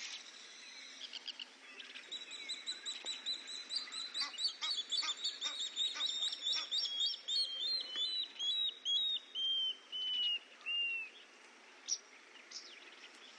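African wild dogs twittering: a long run of high-pitched, bird-like chirps that comes thick and fast at first, then slows into longer notes that sink slowly in pitch and stop about eleven seconds in.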